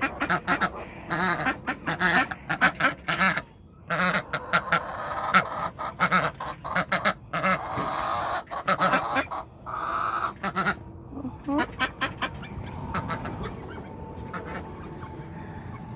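A flock of domestic ducks calling loudly, many rapid overlapping quacks and honks, dying down after about twelve seconds. They are clamouring because they expect to be fed.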